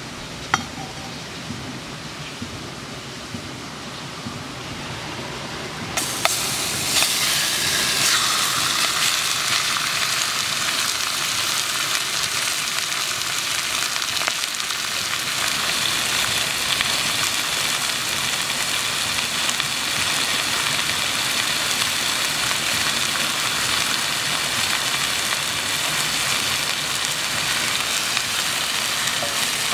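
Campfire crackling under a heating pan. About six seconds in, chunks of buffalo meat hit the hot metal pan and start sizzling loudly, then fry steadily as they sear.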